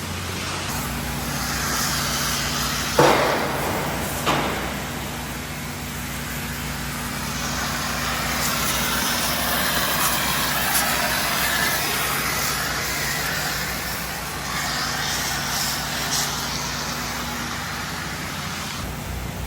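Water-recovery vacuum machine running steadily, a low hum under a rushing hiss as it sucks up wash water. Two sharp knocks about three and four seconds in are the loudest sounds.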